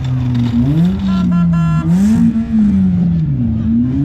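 Demolition derby compact car engines revving up and down in the ring, with three short beeps about a second in.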